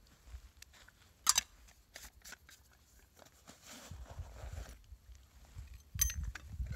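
Hands handling a small fire starter and setting things down on ice: scattered crunchy clicks and rustles, with a sharp crinkle about a second in and another near the end.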